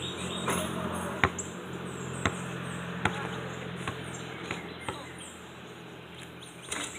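A basketball bouncing on the ground over and over: sharp single thuds about once a second, the loudest a little over a second in.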